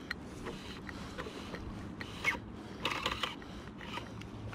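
Fly line being stripped in by hand through the rod guides while playing a small hooked brown trout: a string of short rasping pulls and clicks, the busiest run of them about three seconds in.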